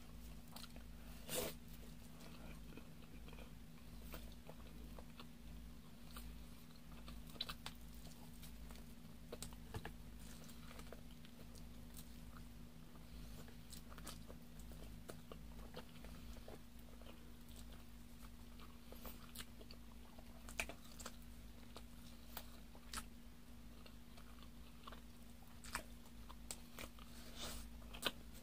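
Faint mouth sounds of a person chewing braised chicken, close to the microphone: scattered soft smacks and clicks over a steady low hum.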